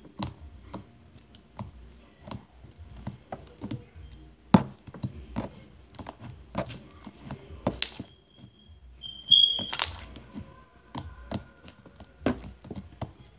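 Homemade slime with water worked into it, kneaded, folded and pressed against a tabletop by hand: irregular sticky clicks, pops and thunks, about one or two a second. A brief high squeak is heard about nine seconds in.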